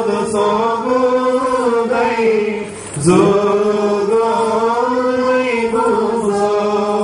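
Slow liturgical chant sung in long, held notes. It breaks briefly about three seconds in, then starts again with a rising note.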